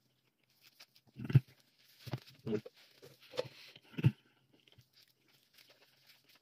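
A man chewing a mouthful of sandwich: irregular mouth smacks and clicks, with about five louder knocks and smacks between about one and four seconds in.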